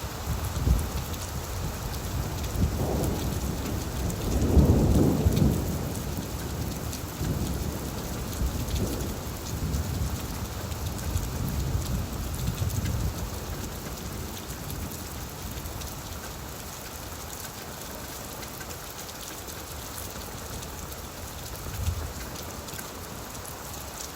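Steady rain falling on leaves, with a low rolling rumble of thunder through the first half, loudest about five seconds in and dying away after about fourteen seconds.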